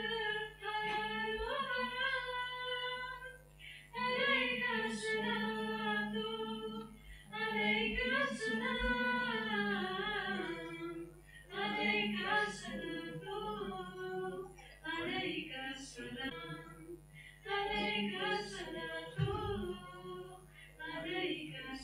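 Female voices singing an Urdu nazm, a devotional poem, unaccompanied, in phrases of a few seconds with short breaks between them.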